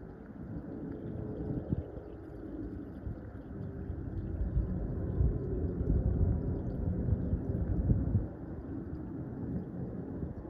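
Low rumble of a distant aircraft, swelling through the middle and dropping away abruptly about eight seconds in.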